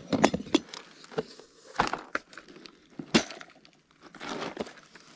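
A series of sharp clinks and knocks of hard objects: a cluster at the start, then single ones about two and three seconds in.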